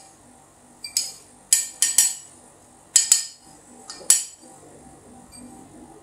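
Sharp metallic clinks and taps, about eight in three seconds, from a Latina 600N coffee grinder and its metal parts being knocked while leftover ground coffee is cleared out. The last strike comes about four seconds in.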